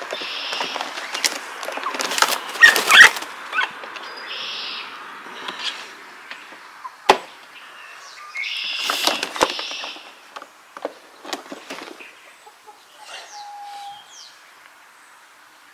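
Brown hen flapping her wings in loud irregular bursts and squawking while being lifted out of a plastic pet carrier and held up by hand; the flapping is loudest around the third second.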